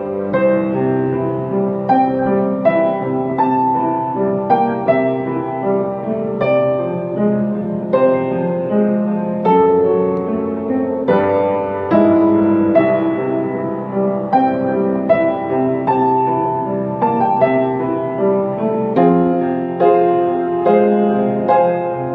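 Upright acoustic piano played solo: a pop-ballad arrangement with a melody over sustained chords, notes struck in a steady flowing run, with no singing.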